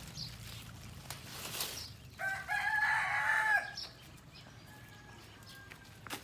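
A rooster crowing once, one call of about a second and a half, the loudest sound here. Before it come the rustles of lettuce leaves being handled.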